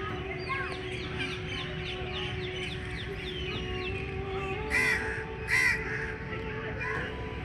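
Birds calling: a quick run of short, downward-sweeping chirps from small birds, then two loud harsh caw-like calls about five seconds in, the loudest sounds.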